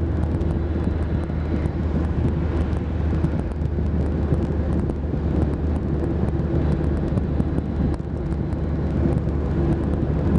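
Car driving at motorway speed: steady tyre and road noise over a low engine drone, heard from inside the car.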